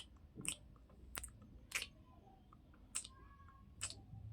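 Close-miked ASMR mouth sounds: about five short, wet mouth clicks and smacks, spaced unevenly roughly a second apart.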